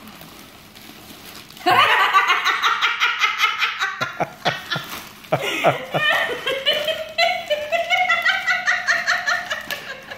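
A woman laughing hard in fast, rhythmic peals. It starts suddenly about two seconds in and runs on, with a brief catch of breath near the middle.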